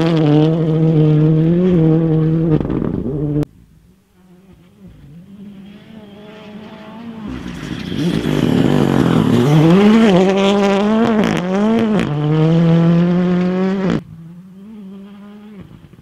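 M-Sport Ford Fiesta Rally2's turbocharged four-cylinder engine driven flat out on gravel, heard from the trackside. Its revs rise and drop through quick gear changes. The sound cuts off abruptly twice as shots change, the car sounding close and loud, then distant and building up again.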